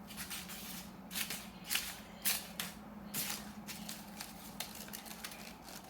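Folded paper spring toy handled, its paper rustling in a series of short soft rustles, most of them in the first few seconds, over a faint steady hum.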